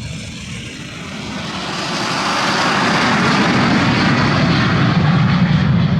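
Aircraft engine noise, a broad rumble that grows steadily louder over the first three seconds as the aircraft draws nearer, then holds steady.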